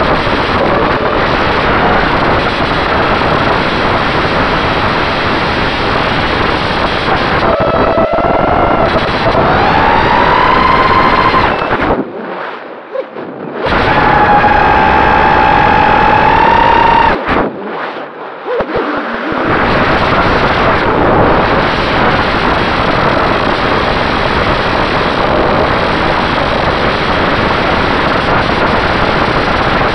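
Onboard audio of an FPV quadcopter in flight: heavy wind rush over the drone's motor and propeller noise. A motor whine rises in pitch around a third of the way in and comes back near the middle, and the sound drops away twice briefly, just before and after that second whine.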